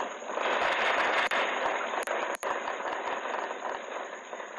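Rumble and rattling of a magnitude 4.6 earthquake picked up by a home security camera's microphone: a loud, even roar that fades gradually, with a couple of sharp clicks about two seconds in.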